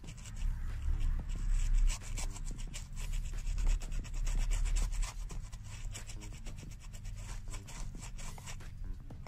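Glue brush scrubbing rapidly back and forth under the loose gemming and over the leather insole of a shoe, many short bristle strokes on leather, louder and heavier in the first half.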